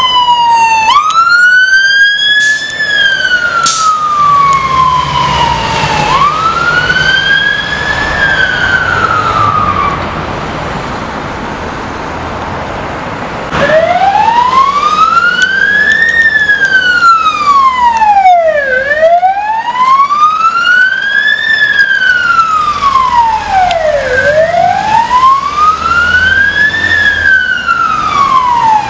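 Fire engine sirens wailing. The first siren rises and falls slowly, with a few quick sweeps near the start, and drops away about ten seconds in. After a quieter few seconds, a second fire service vehicle's siren wails in long, even rises and falls of about five seconds each.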